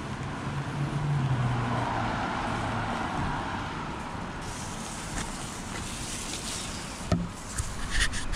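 Steady rain on a city street as a car passes on the wet road, its engine hum and tyre hiss swelling and fading over the first few seconds. A few sharp clicks and knocks near the end.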